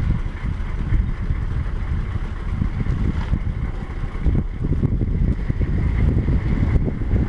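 Vehicle driving, a steady low rumble with wind buffeting the microphone.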